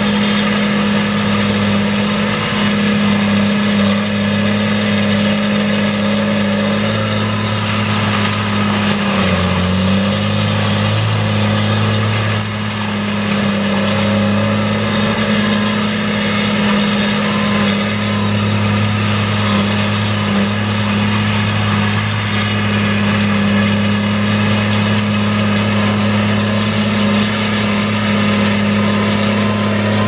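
Tracked forestry mulcher running steadily at high revs, its diesel engine and mulching head giving a loud, constant hum that dips briefly in pitch about ten seconds in.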